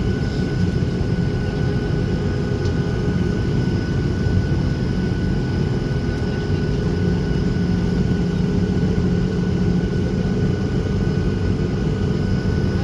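Boeing 737-800 cabin noise while taxiing: its CFM56-7B engines at low thrust give a steady low rumble, with a thin steady whine above it.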